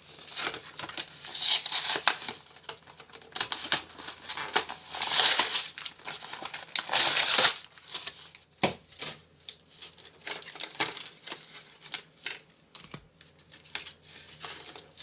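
A foil Pokémon card booster pack crinkled and torn open. The crinkling comes in two longer stretches, then gives way to short sharp taps and clicks of the cards being handled.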